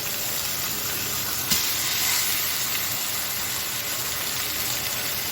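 Seasoned chicken breasts sizzling in a frying pan with onion and bell pepper, a steady hiss. There is one sharp knock about a second and a half in, after which the sizzle is a little louder.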